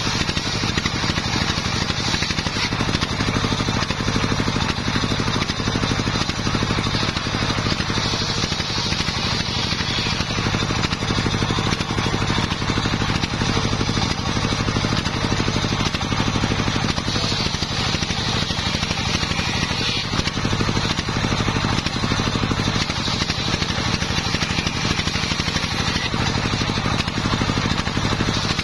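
Homemade engine-driven circular sawmill running steadily, its engine hum under the continuous hiss of the large blade ripping waru (sea hibiscus) wood into planks.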